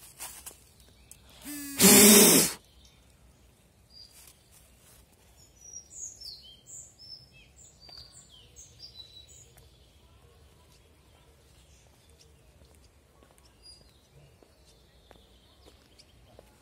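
Small forest birds chirping in a run of short, high notes over a quiet background, with one loud burst of noise lasting under a second about two seconds in.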